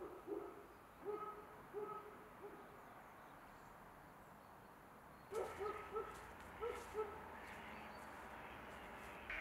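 Short, low, hooting bird calls coming a few at a time: four in the first two and a half seconds, then a quicker run of about five from a little past halfway. A faint steady background noise runs underneath.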